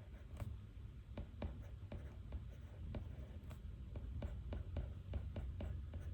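Pen writing on paper: irregular short scratches and taps, a few each second, over a steady low room hum.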